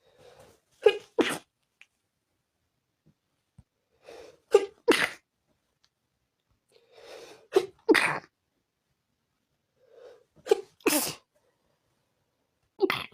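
A person sneezing again and again, about every three seconds. Each sneeze is a short breath in and then a sharp double burst. The sneezer puts the fit down to dust.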